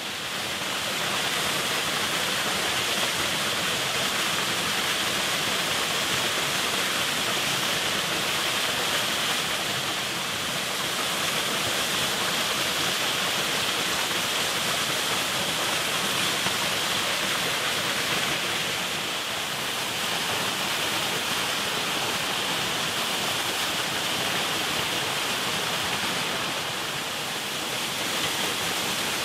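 Steady rushing of fast-flowing white water from a stream cascade.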